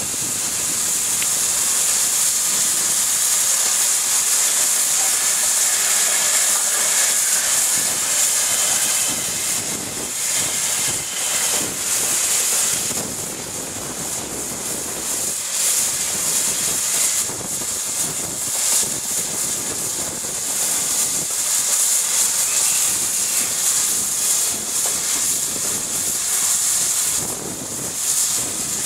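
Steam locomotives hissing loudly and steadily as steam blows off.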